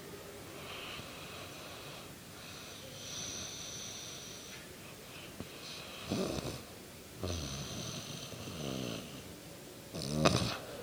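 A woman snoring in her sleep. Hissing breaths come first, then three loud snores: a short one about six seconds in, a long one right after, and the loudest, a short one, near the end.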